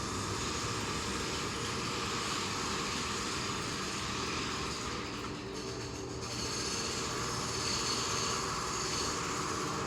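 Steady mechanical noise: a dense rumble with hiss that thins slightly in the highs around five to six seconds in.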